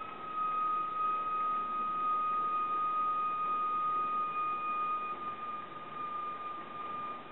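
Theremin holding one long, pure high tone that sinks very slightly in pitch, with a faint overtone above it over a steady hiss. The tone eases a little quieter after about five seconds.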